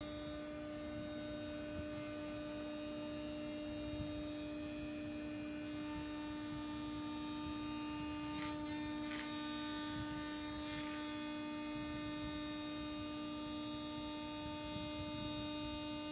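MultiCam APEX3R CNC router running with its spindle giving a steady whining hum, over a rush of noise from the dust collection as the bit cuts plastic sheet. A few short scrapes come about halfway through.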